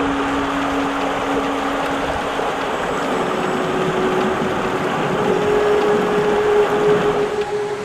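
Small forest creek rushing over rocks: a steady hiss of white water.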